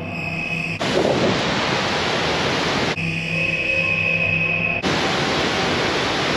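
Background music: held sustained tones that switch abruptly, about every two seconds, to a loud rush of hiss and back again.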